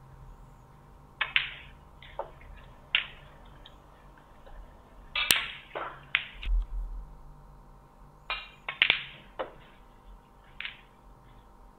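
Snooker balls clicking during play: the cue striking the cue ball and balls knocking together, about ten short sharp clicks spread irregularly, the loudest about five seconds in.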